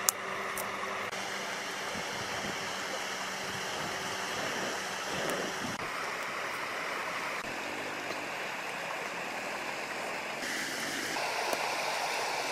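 Running water of a stream: a steady rushing hiss that shifts in tone several times, with one sharp click at the start.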